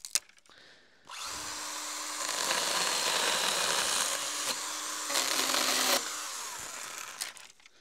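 Stihl GTA 26 cordless mini chainsaw starting about a second in and cutting through a thin dry branch: a steady electric motor and chain whine that gets louder as it bites into the wood and drops a little in pitch near the end of the cut. It stops about six seconds in and winds down.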